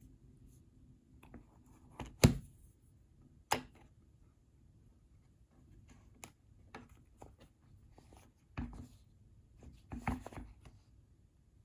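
An Apple Pencil and its packaging handled by hand: a handful of sharp clicks and taps, the loudest about two seconds in, then short scuffs of handling near the end.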